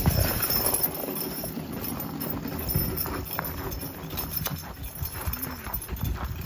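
Percheron–Standardbred cross draft mare walking on packed snow: irregular muffled hoofsteps, with a log dragged behind her on a chain, scraping over the snow. The thumps are loudest at the very start.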